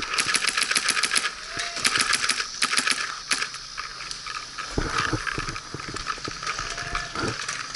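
Paintball markers firing in rapid strings of shots, about ten pops a second for the first three seconds or so, then fewer, scattered shots.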